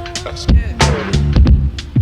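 Background hip-hop music with a steady beat and vocal lines.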